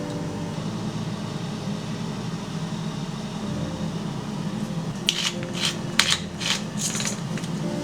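Steady mechanical hum, like a small appliance or fan running. About two thirds of the way in come a quick run of about seven sharp clicks or clinks.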